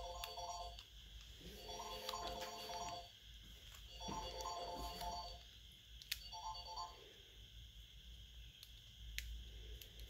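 Faint background music: short repeating synth phrases that come and go. A few small clicks from handling the phone's parts with tweezers.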